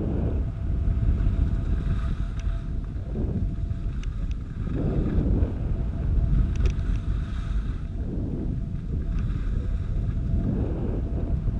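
Wind buffeting the microphone of a camera moving fast down a groomed ski slope, a steady low rumble. The scrape of edges on packed snow swells every two to three seconds as turns are carved.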